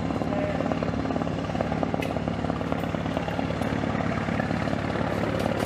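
UH-60 Black Hawk helicopter approaching to land, its rotor beating with a rapid, even chop and holding steady in level.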